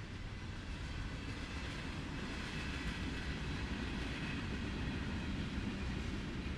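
Freight train cars rolling past: a steady rumble of wheels on rail that grows a little louder over the first second.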